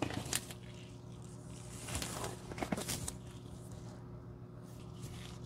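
Black disposable gloves rustling and squeaking as gloved fingertips are pinched and rubbed together, in short bursts at the start and again about two to three seconds in, over a faint steady hum.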